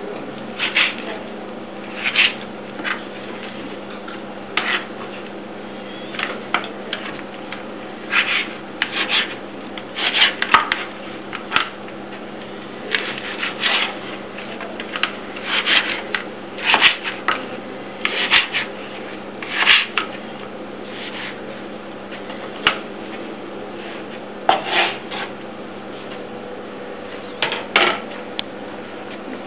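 Large kitchen knife slicing through raw catfish fillet on a plastic cutting board: irregular short scraping strokes of the blade through the flesh and against the board, over a steady low hum.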